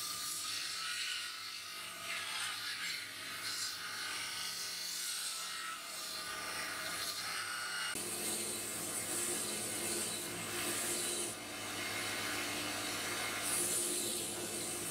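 Belt grinder running, with a steel knife blade held against the abrasive belt: a steady motor hum under a hissing grind that swells and eases as the steel is pressed on, loudest from about 8 seconds in and again near the end.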